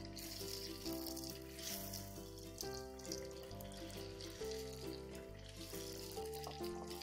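Golgappa puris deep-frying in hot oil, a steady sizzle, under background instrumental music whose held notes change about every half second.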